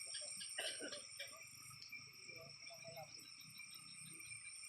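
Night insect chorus: crickets trilling steadily at several pitches at once.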